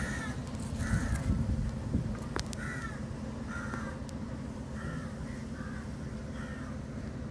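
Crows cawing again and again, a short call about every second, over a steady low rumble. Two sharp clicks come near the middle.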